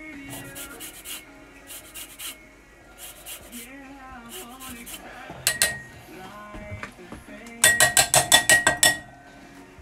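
A lime being zested on a metal rasp grater over a glass bowl: a series of rasping strokes. Near the end comes a quick run of about ten sharp, ringing taps as the grater is knocked against the bowl to shake off the zest.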